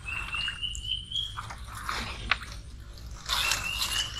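Stiff swamp grass leaves crackling and scraping along a small plank boat as it pushes through them, in several short crunchy bursts. A high call of a few short notes stepping upward sounds twice behind it.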